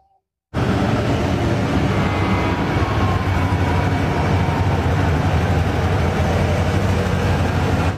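Giant mining haul truck's diesel engine running with a deep, steady rumble as the truck moves, starting abruptly about half a second in.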